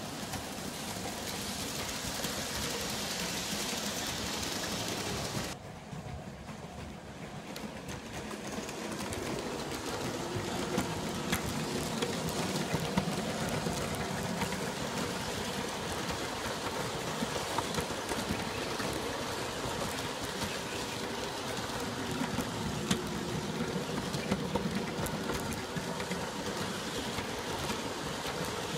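G scale model trains running on their track: steady motor whirring with small clicks from the wheels on the rails. About five seconds in, the sound changes abruptly, and a wavering hum comes up under the clicking.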